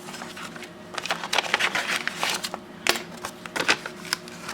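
Paper and plastic mail packaging rustling and crinkling as it is opened and its contents handled, with many small, irregular sharp crackles and taps.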